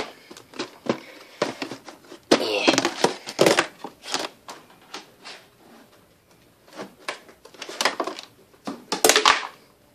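Plastic cat-food bowls and a plastic storage bin of dry cat food being handled: repeated knocks and clatters of plastic, with a denser rattle of dry kibble a couple of seconds in and another burst of clatter near the end.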